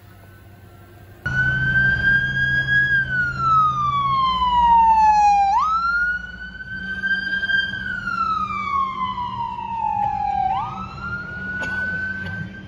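Emergency vehicle siren in a slow wail: faint at first, then loud from about a second in after a cut. Each cycle rises quickly, holds briefly and falls slowly over about three seconds, for about three cycles.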